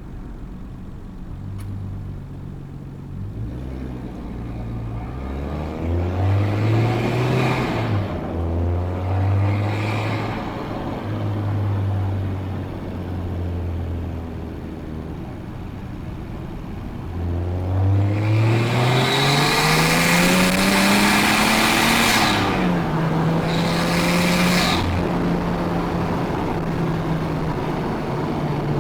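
Nissan Skyline R34 GT-T's turbocharged straight-six with a full exhaust, accelerating through the gears. The engine note rises, drops at a gear change, settles, then climbs in one long hard pull with a loud rush of turbo noise. It drops at another shift and settles into a steady cruise near the end.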